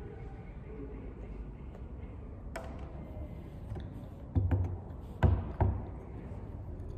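A steady low rumble with a sharp click about a third of the way in, then three short, heavy low thumps with clicks in quick succession past the middle.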